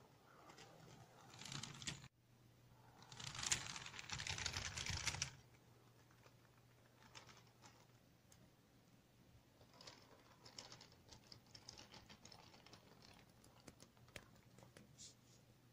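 LEGO model of a Konstal 105Na tram running on plastic LEGO track, a faint clicking rattle with a low motor hum. The rattle is loudest about three to five seconds in and thins to scattered light clicks afterwards.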